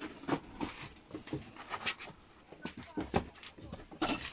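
Irregular footsteps, scuffs and knocks of objects being bumped and handled in a cramped storeroom, with no steady sound underneath.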